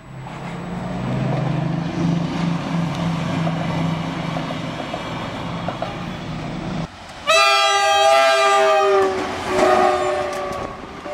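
A train passing with a steady low engine hum; then, after an abrupt change, a train horn sounds loudly in two multi-tone blasts, the first long and dropping slightly in pitch as the train rushes past.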